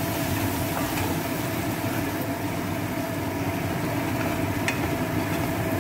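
A steady hum with a hiss over it, unchanging throughout, like a motor or fan running in the kitchen while the masala cooks.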